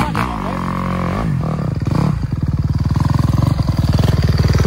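Motorcycle engine revving up and down a few times, then pulling on a steady note that gets a little louder.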